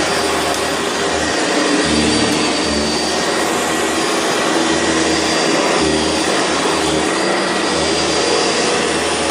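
Sanitaire SC679 upright vacuum cleaner running steadily as it is pushed over carpet, a steady high whine over the rush of the motor and brush.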